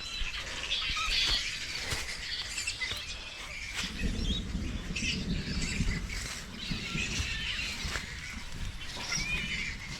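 Outdoor bird chatter, with many small birds chirping and calling over one another. A low rumble joins about four seconds in.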